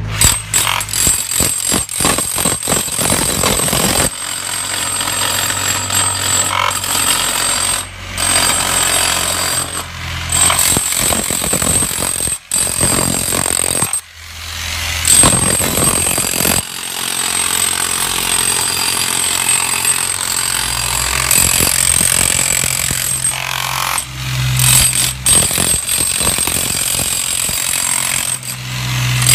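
Jackhammer breaking up steel-reinforced concrete in the ground, hammering loudly and continuously with a few short pauses.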